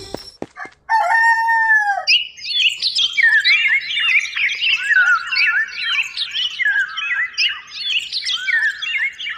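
A rooster crows once, about a second in, then many small birds chirp and twitter without a break.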